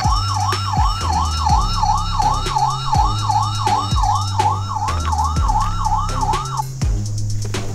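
Toy emergency vehicle's electronic siren wailing in quick, falling sweeps, about three a second, stopping about six and a half seconds in. Background music with a steady beat plays underneath.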